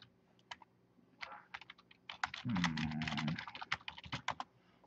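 Typing on a computer keyboard: a few scattered key clicks, then a quicker run of typing from about halfway through.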